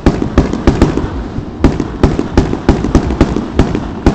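Aerial fireworks display going off: a rapid, uneven run of sharp bangs and crackling pops, several a second, over a low rumble, picked up by a handheld Nintendo 3DS's small microphone.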